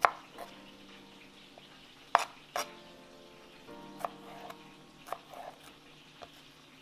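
Chef's knife slicing green chiles on a cutting board: a few irregular sharp knocks of the blade hitting the board, the loudest right at the start and a pair about two seconds in. Under them are a faint sizzle of fish frying in oil and soft background music with held chords.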